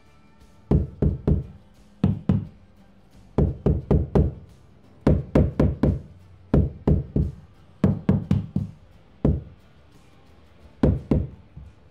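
Engineered-wood chevron flooring pieces being knocked into place with a mallet: sharp, solid knocks in quick bursts of two to five blows, with short pauses between bursts.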